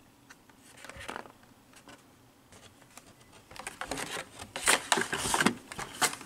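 Hot Wheels blister packs and their cardboard backing cards rustling, crinkling and clicking as they are handled and shuffled, with a brief rustle about a second in and denser, louder handling in the second half.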